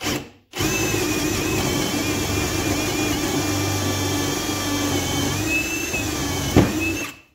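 Ryobi One+ HP brushless hammer drill, set to drill mode, boring a 3/8-inch bit into a stack of wood blocks. A brief blip of the trigger, then the motor and bit run steadily with a whine for about six and a half seconds. One sharp knock comes near the end, and then it stops.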